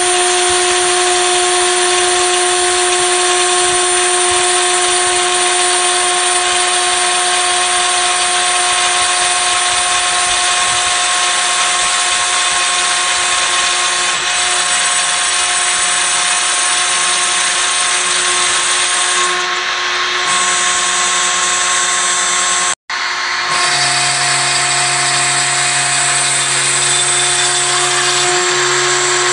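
CNC router spindle running with a 2 mm end mill milling 3 mm acrylic sheet: a steady whine over loud cutting noise. The sound cuts out for an instant about three-quarters of the way through, and the machine's lower hum shifts in pitch after it.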